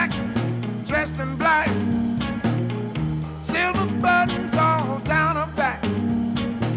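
Background music: a song with a singing voice over guitar and a steady bass line.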